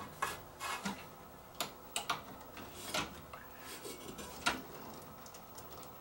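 Scattered small plastic clicks and light rattling as a microwave door interlock microswitch is pushed into its plastic mounting bracket among the wiring, with one sharper click about four and a half seconds in.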